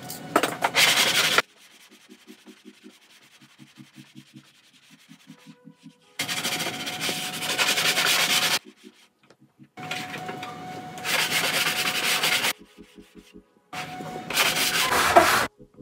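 Hand sanding along the freshly trimmed edge of a plastic cutlery tray with sandpaper, smoothing the cut. It comes as bursts of rubbing strokes: a brief one at the start, then three longer runs from about six seconds in, separated by pauses.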